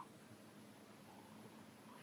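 Near silence: quiet room tone.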